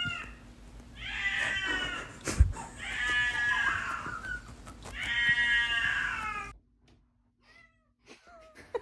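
A deaf cat screaming loudly to be let into a room: three long yowls in a row, with a sharp knock between the first and second. After about six and a half seconds the yowling stops and only a few faint short sounds follow.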